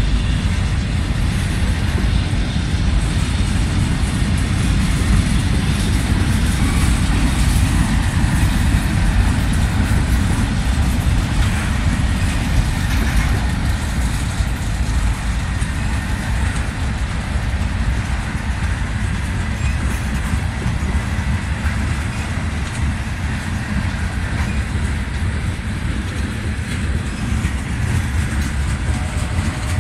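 Freight train of covered hopper cars rolling steadily past: a continuous low rumble of steel wheels on the rails.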